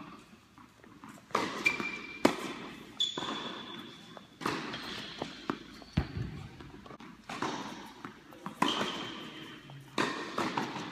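Tennis balls being struck by racquets and bouncing on the hard court: about ten sharp pops at irregular intervals, each echoing through the indoor court hall. A few brief high squeaks sound among them.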